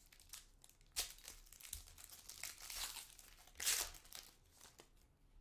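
A foil trading-card pack wrapper being torn open and crinkled by hand: a run of irregular crackles and rustles, with a sharp crackle about a second in and the loudest crinkling past the middle.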